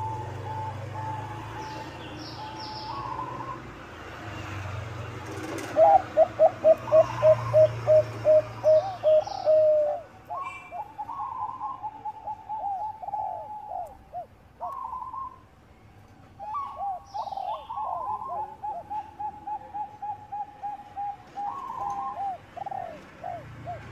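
Bangkok-strain zebra doves (perkutut) singing their staccato cooing song. A loud run of quick coos, about three a second, starts about six seconds in and lasts about four seconds, and softer runs of coos follow later. Faint chirps of small birds and a low hum sound in the background.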